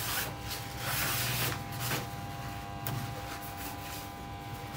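A cloth rubbing and wiping the plastic casing of an air conditioner's indoor unit, a few scrubbing strokes strongest in the first two seconds, over a faint steady hum.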